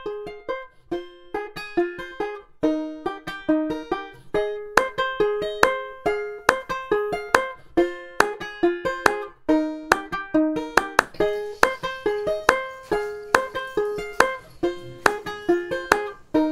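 Upbeat background music: a bright plucked-string melody of short, quick notes, with a light beat joining a few seconds in.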